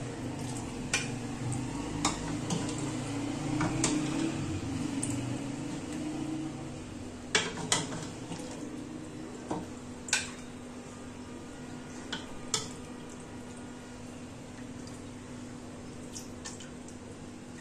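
A metal spoon scraping and clinking against the inside of a pressure cooker pot as curry is ladled into a bowl. There are sharp clinks every second or two, the loudest a quick pair about seven seconds in, over a steady low hum.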